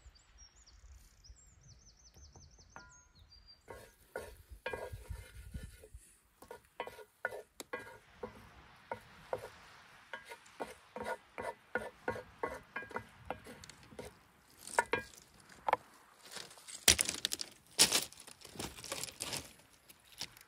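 Food being handled at a wooden cutting board: a run of irregular sharp clicks and taps, with a few louder knocks near the end.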